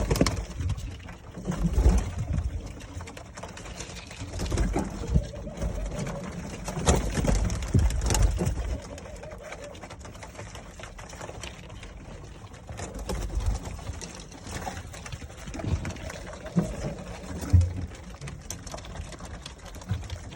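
Doves cooing, with low rumbling handling noise on the microphone.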